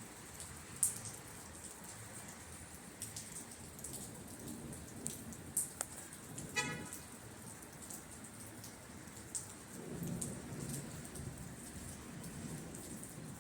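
Steady rain falling, with scattered sharp drips and taps of drops. A short pitched tone sounds briefly about halfway through, and a low rumble swells about ten seconds in.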